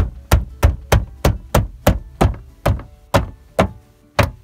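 Hand tapping the plastic lower door molding of a 2014 Hyundai Santa Fe, a run of about a dozen sharp knocks at roughly three a second that slow slightly near the end, pressing the trim onto its retainer clips.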